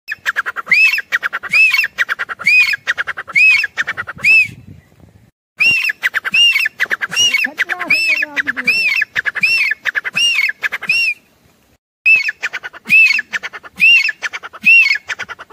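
Female grey francolin calling in three bouts: a quick stuttering run of notes under a series of loud, shrill calls, each rising then falling in pitch, about one a second.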